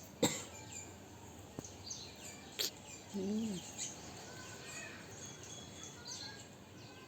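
Small birds chirping in the background, with two sharp clicks, one about a quarter second in and one about two and a half seconds in, and a brief low voice-like sound just after three seconds.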